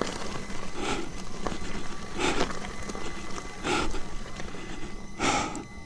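A rider breathing hard into a helmet microphone, one strong breath about every second and a half, while climbing on an electric unicycle. Under the breaths run a steady high whine and a rough gravel noise.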